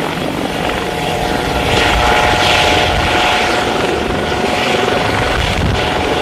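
Eurocopter AS365 N3 Dauphin twin-turbine helicopter flying overhead: a rapid rotor chop with a steady whine over it, growing louder about two seconds in.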